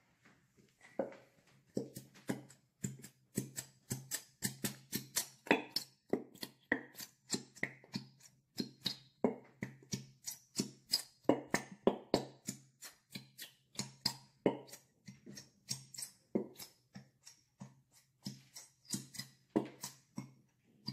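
Plastic bottle of thick glow-in-the-dark glue being squeezed hard by hand, spluttering and squirting in a quick run of short bursts, about three a second, as glue and air are forced out of the nozzle.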